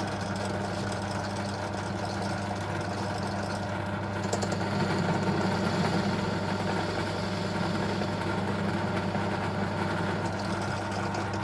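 Drill press motor running steadily, drilling shallow 13 mm holes into plywood; the sound grows a little louder for a few seconds from about four seconds in.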